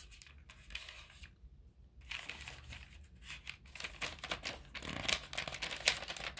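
Paper book pages rustling and crinkling as they are handled. It is faint at first, then becomes a dense crackly rustle from about two seconds in.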